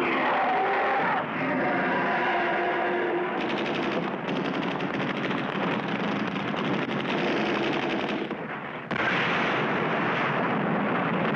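Cartoon sound effect of rapid automatic rifle fire, a fast string of shots from about three seconds in until about eight seconds. Near the end a sudden loud burst of noise cuts in and carries on.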